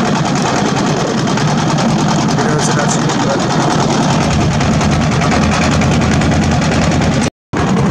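Engine of a wooden river boat running steadily under way, a dense fast chugging. The sound cuts out abruptly for a moment near the end, then returns.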